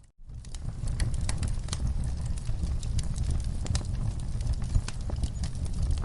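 Wood fire crackling, with frequent sharp pops and snaps over a steady low rumble of flames. The sound drops out briefly at the very start.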